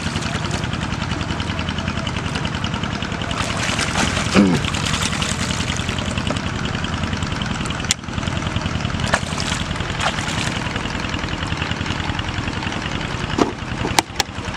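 A small engine runs steadily with a fast, even pulse throughout, and water pours and splashes as plastic-bottle fish traps are handled and emptied in the river. There are a few sharp clicks near the end.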